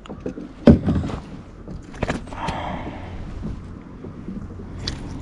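A few hard knocks and thumps against a fishing kayak as a freshly landed bass thrashes. The loudest comes about two-thirds of a second in and a second one about two seconds in.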